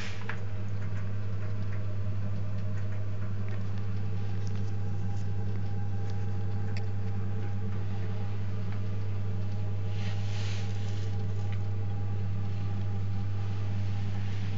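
Protherm Lynx 24 kW gas boiler running: a steady low hum, with a few faint ticks and rustles over it.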